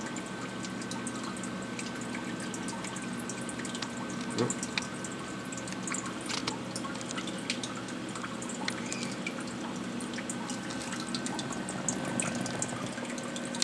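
Saltwater aquarium's circulating water trickling and dripping steadily, with a faint steady whine and scattered small clicks.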